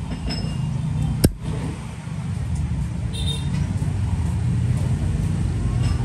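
Steady low rumble of road traffic, with one sharp click about a second in as the Zippo lighter is handled.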